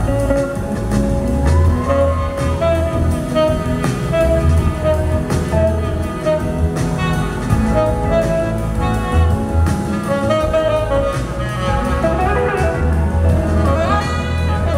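Live band playing a slow soul-blues song with electric guitars, saxophone, bass and drums; held melody notes over a heavy bass line, with bending notes near the end.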